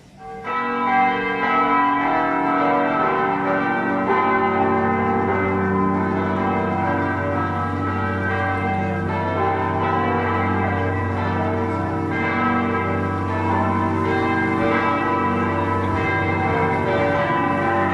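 Full peal of six large Grassmayr-cast church bells, tuned G, A, B, D, E and G, the largest weighing nearly six tonnes, ringing together. The ringing builds up within the first second, then goes on as a dense, steady wash of overlapping bell strikes and long humming tones.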